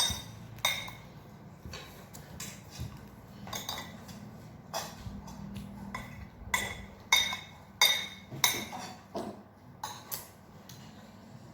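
Eating utensils clinking against dishes: over a dozen sharp, ringing clinks at irregular intervals, with the loudest a little past the middle.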